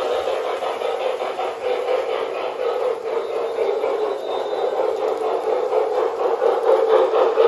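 A K-Line O-gauge model train running on its track: a steady rolling rumble and whir from the Santa Fe Northern 2903 steam locomotive's motor and the wheels of its freight cars. It gets louder and more clattery near the end as the locomotive comes close.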